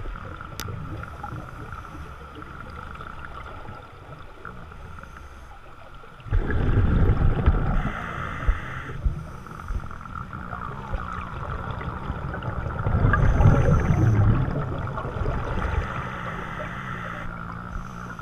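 Underwater audio of a scuba diver's exhaled bubbles gurgling out of the regulator in two surges, about six seconds in and again about thirteen seconds in, over a steady underwater hum.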